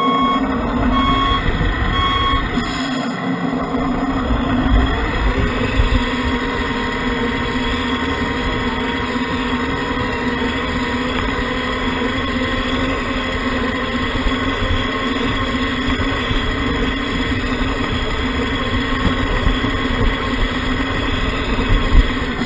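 Simulated diesel truck engine from an RC truck's sound module, running with a steady drone. Three short beeps about a second apart near the start, like a reversing beeper.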